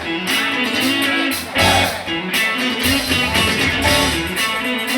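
Live band music with guitar, the bass line moving from note to note under strummed and picked guitar.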